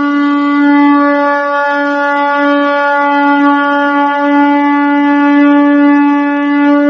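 Intro sound effect: one long, steady horn-like note held without a break.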